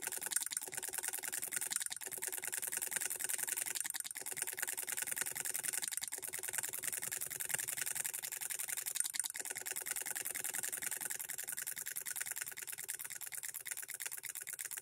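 Hand-built model hit-and-miss solenoid engine running, a rapid, steady clicking from its solenoid and mechanism. It is running on a bench supply turned down below half its rated voltage and still keeps going.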